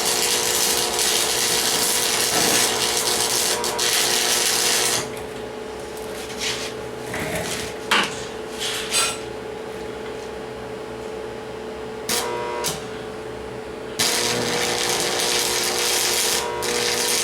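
A power tool working steel: a long stretch of loud hissing noise, then a quieter gap with a few knocks and clanks, then the loud hissing again near the end. A steady hum runs under it all.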